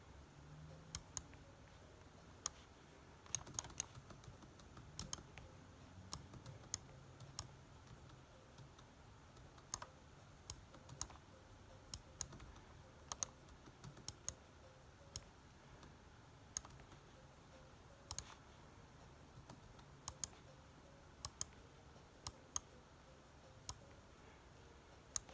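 Computer keyboard and mouse clicking: sharp single clicks and quick pairs at an irregular pace, over faint room hiss.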